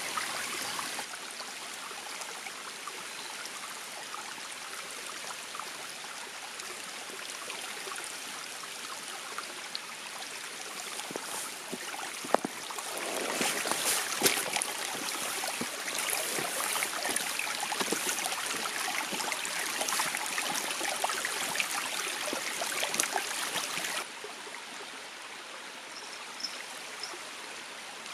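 Shallow forest stream flowing over rocks, a steady rushing. In the middle stretch it grows louder, with sharp knocks and footsteps on loose streambed stones.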